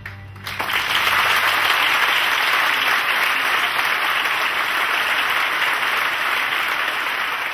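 Audience applauding at the end of a dance piece. The last of the music dies away at the start, and the applause breaks out about half a second in, building within a second to a loud, steady clapping.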